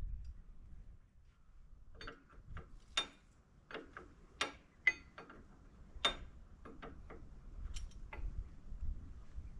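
Irregular sharp metallic clicks and taps of a wrench working on the hydraulic line fittings of a forklift's lift cylinder, about fifteen over several seconds.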